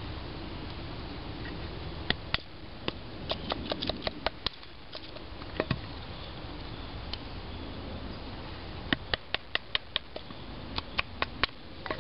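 Sharp wooden taps in quick runs of several a second, with pauses between runs: a knife being batoned with a stick to split small cedar pieces.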